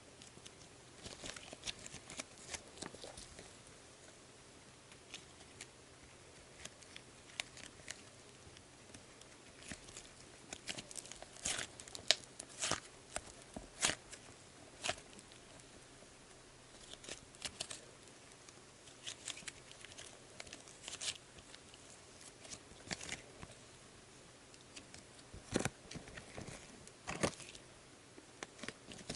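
Soft, fluffy Sbabam Melmito Softy slime being stretched and kneaded by hand, giving faint sticky clicks and crackles in irregular clusters.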